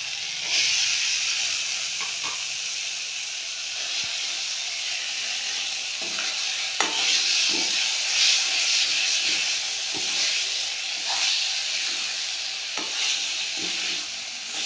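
Onion-tomato masala frying in oil in a kadhai, sizzling steadily. The sizzle gets louder about half a second in as cooked green peas go in, and a metal spoon scrapes and knocks against the pan as they are stirred through.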